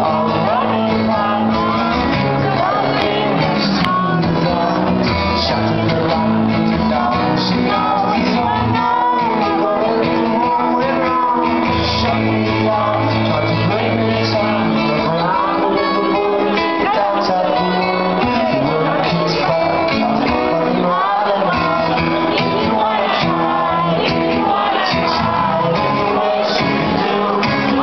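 Live electric guitar strummed under a man's singing, with audience members shouting and singing along.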